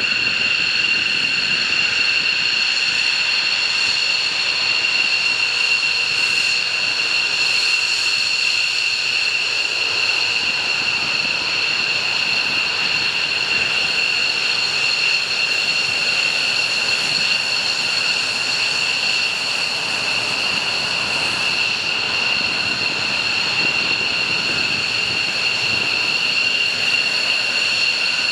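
F-15 Eagle fighter jets taxiing, their twin jet engines at idle giving a steady high-pitched whine over a rushing hiss.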